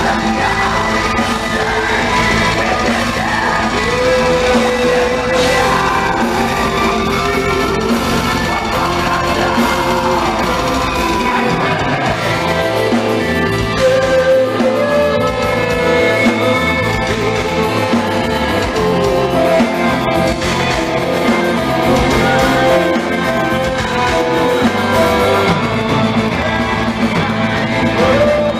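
A progressive metal band playing live: electric guitars, bass and drums, with long held melody notes over them.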